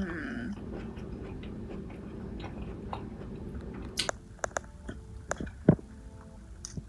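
A person chewing a mouthful of slow-cooked ravioli, meatball and broccoli, starting with a short falling "mmm" hum. About four seconds in come a few wet mouth clicks and smacks.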